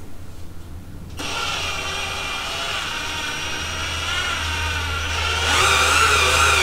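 SnapFresh 20V cordless drill driving a 3-inch wood screw into a wooden beam with a Phillips bit. The motor starts about a second in, runs steadily, and gets louder near the end as the screw sinks deeper.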